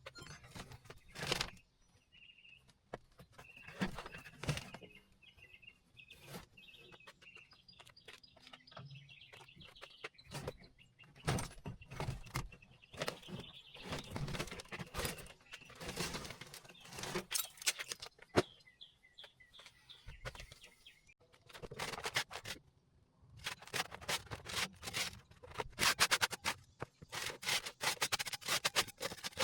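Irregular knocks, clicks and scrapes of hand work in a truck cab, growing into a dense run of scraping and clicking in the last few seconds. Birds chirp in the background through the first two-thirds.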